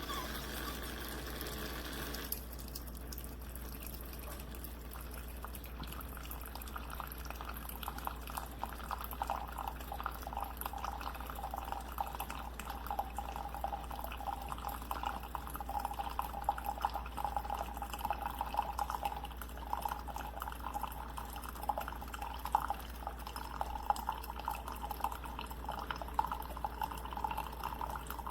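CHULUX Slim single-serve coffee maker brewing, its hot water dripping and spluttering into the cup with many small crackles, starting about two seconds in and running on steadily.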